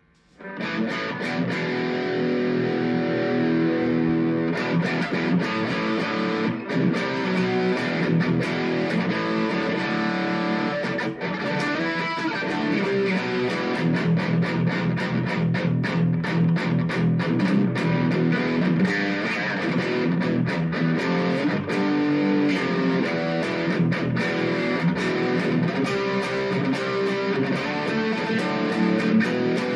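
Ibanez Gio electric guitar with a Tokai pickup set, played through an amplifier: a continuous passage of chords and single-note runs that begins right after a brief silence at the start.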